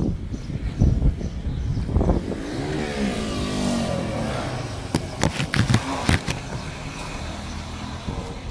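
A motor vehicle driving past on the street, its engine pitch bending up and down over rising and fading road noise around the middle. Thumps come in the first two seconds and a cluster of sharp knocks about five to six seconds in.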